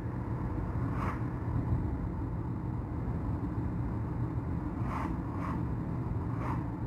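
Car driving on the road, heard from inside the cabin: a steady low drone of engine and tyre noise, with a few faint brief hisses.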